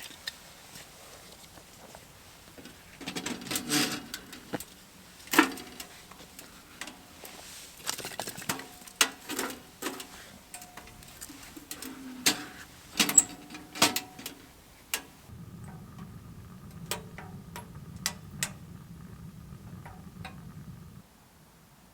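Knocks, clanks and clicks of a wood-burning tent stove being stoked, as its door and the wood are handled, coming in uneven clusters. For the last several seconds a low steady hum with light scattered ticks runs, then cuts off suddenly.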